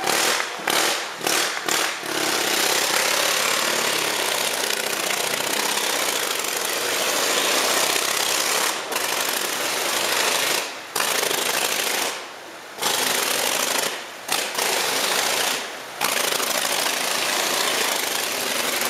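1923 Indian motorcycle's V-twin engine running hard with a rapid, rattling exhaust as it circles the wall of a wooden Wall of Death drum. The noise drops away briefly several times in the second half.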